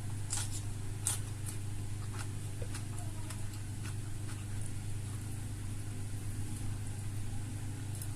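Eating sounds: scattered small clicks and crunches of someone chewing fried food, most of them in the first few seconds. A steady low hum runs underneath.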